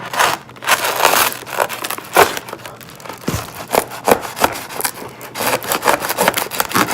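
Packaging being cut and pulled apart by hand: a quick, irregular run of rustling, crinkling and scraping, with several sharper scrapes.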